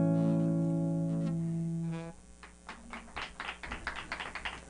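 Final strummed chord on an acoustic guitar ringing out, then damped short about two seconds in, followed by scattered hand clapping from a small audience.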